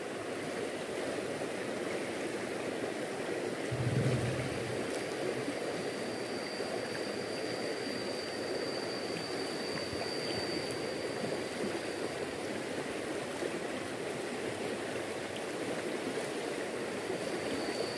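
Fast-flowing river current rushing steadily, with a faint high whine from about five to twelve seconds in.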